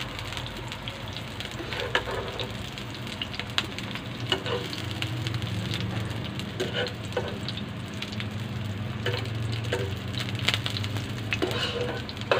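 Sliced onion rings sizzling in hot oil in a frying pan, with metal tongs clicking against the pan every second or so as the onions are picked out. A steady low hum runs underneath.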